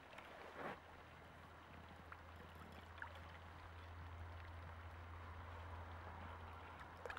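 Near silence: faint outdoor background with a steady low hum and one brief soft noise under a second in.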